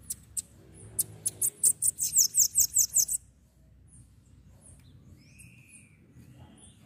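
Bananaquit (sibite) singing: a run of very high, sharp notes that come faster and louder, ending abruptly about three seconds in. Fainter chirps of other birds follow.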